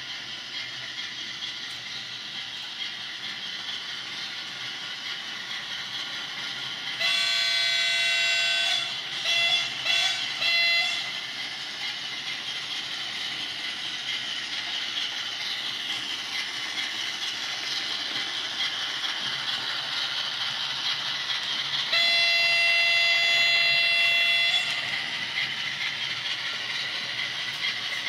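Sound-equipped model of a WDG-4P diesel locomotive: the engine sound runs steadily from its small speaker while it hauls a freight train, and its multi-note horn sounds one long blast about seven seconds in, a few short toots just after, and a second long blast near the twenty-two-second mark.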